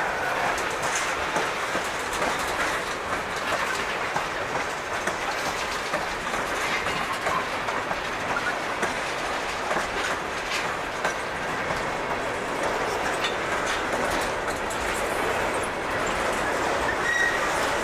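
Freight cars (tank cars, a gondola and covered hoppers) rolling steadily past on the rails, with continuous wheel-on-rail rumble and the clickety-clack of wheels passing over rail joints.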